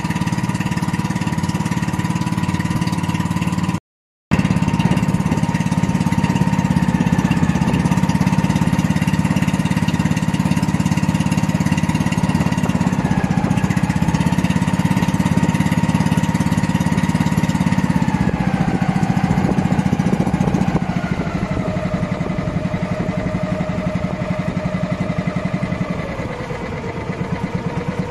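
Small engine of a motorized outrigger boat (bangka) running steadily under way, with a half-second gap about four seconds in. Over the last ten seconds its pitch falls in steps as the engine slows.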